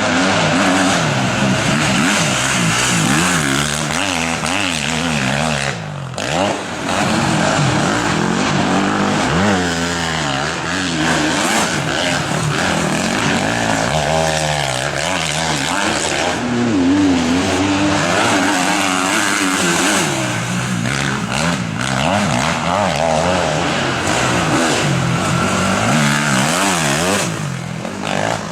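Several motocross motorcycle engines revving hard, their pitch rising and falling continuously and overlapping one another as the bikes accelerate and shift.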